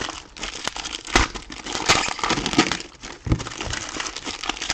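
Plastic trading-card packaging being handled: crinkling and rustling with scattered sharp clicks.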